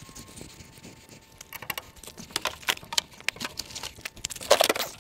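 Footsteps crunching on gravel, irregular, with a louder cluster of scuffs near the end.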